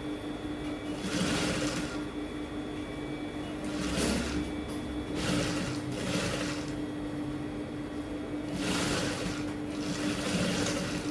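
Electric sewing machine running steadily, stitching the seam that joins a peplum to the top's bodice, with a steady motor hum and a few brief swishing swells over it.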